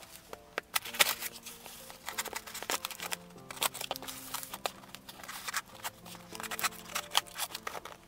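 Sharp clicks, knocks and scrapes of a large serrated knife cutting the packing tape on a cardboard shipping box and hands turning the box on the desk, over quiet background music with held notes.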